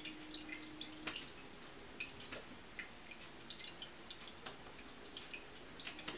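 A water stream from a ceramic pet drinking fountain's spout falls into the bowl with faint, irregular drips and plinks. A light steady hum from its low-voltage pump, turned to a high setting, is clearest in about the first second. Air is still trapped in the filter.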